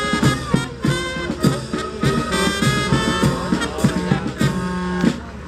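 Background music: upbeat swing-style jazz with brass and a steady beat.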